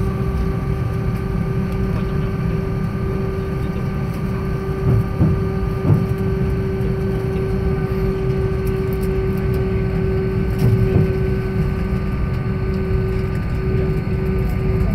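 Airbus A319 cabin noise while taxiing after landing: a steady low rumble with an engine hum over it. A few bumps come about five to six seconds in and again near eleven seconds.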